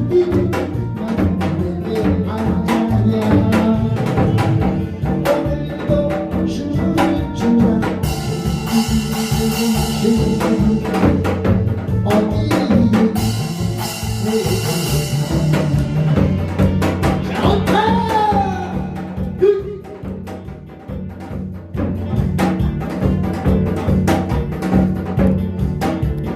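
Upbeat music with a steady drum beat and bass line, without lyrics.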